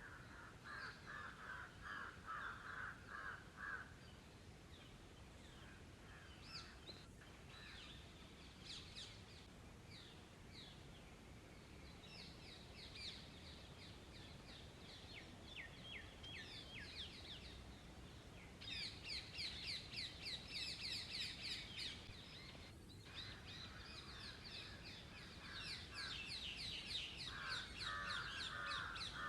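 Outdoor bird calls: a harsh call repeated in quick succession about a second in and again near the end, with long runs of rapid, high chirping through the second half.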